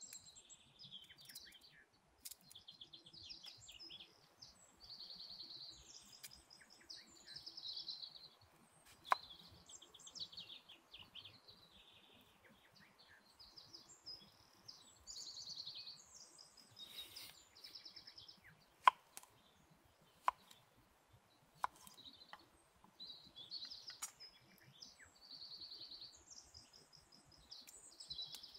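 Songbirds chirping and trilling in repeated phrases, with several sharp knocks of a knife blade striking a wooden cutting board as pears are cut.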